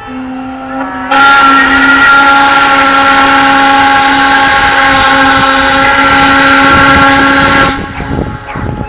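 A boat's whistle sounding one long blast of about six seconds: several steady tones together over a loud hiss, starting about a second in and cutting off sharply.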